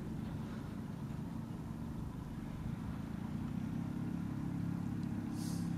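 Light homebuilt aircraft's piston engine running at low power as the plane rolls along the ground toward the listener, a steady low rumble slowly growing louder. Its note sounds a little agricultural, like a small tractor.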